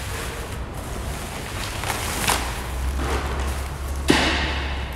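Plastic wrapping and cardboard packaging being pulled off and handled: a run of crinkling and rustling, with a sharp swish about two seconds in and a louder one about four seconds in. A low steady hum sits beneath the second half.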